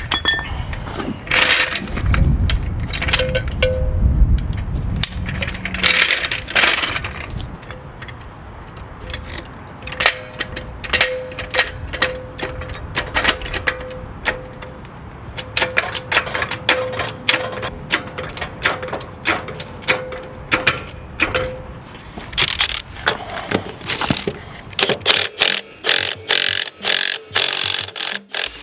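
Metal clicks and clinks of hand tools on a mower wheel hub, coming thick and fast in the second half, over quiet background music.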